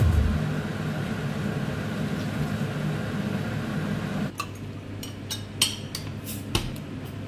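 A steady low background that cuts off abruptly about four seconds in, followed by several sharp clinks of cutlery and dishes being handled.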